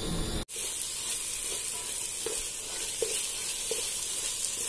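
Chopped onions frying in oil in a pan: a steady sizzle that starts suddenly about half a second in, with a few soft scraping strokes of a spatula stirring them.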